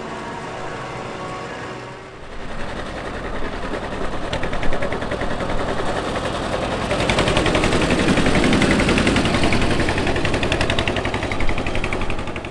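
Vintage diesel tractor approaching and driving past, its engine running with a rapid, even exhaust beat that grows louder as it nears and passes. In the first two seconds a modern tractor's steadier engine hum is heard.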